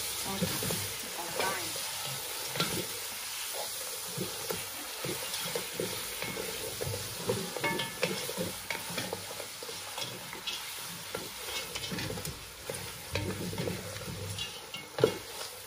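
A wooden spoon stirring chicken pieces through a frying tomato and palm-oil sauce in a metal pot: a steady sizzle under repeated scrapes and knocks of the spoon against the pot, with one louder knock near the end.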